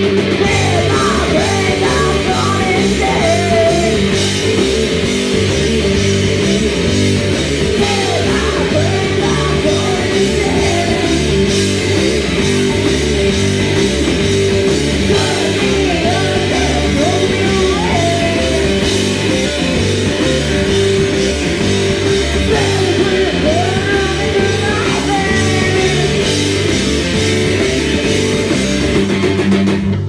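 A rock band playing live and loud: distorted electric guitars, bass and drums, with a woman singing over them. A held guitar note runs under the song.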